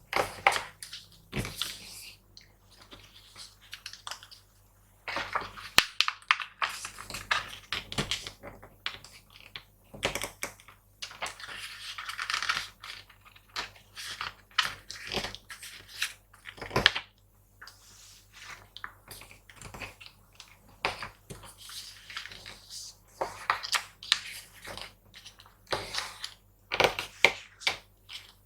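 A sheet of paper being folded and creased by hand: irregular crinkling and rustling with sharp crackles as folds are pressed down, over a faint steady hum.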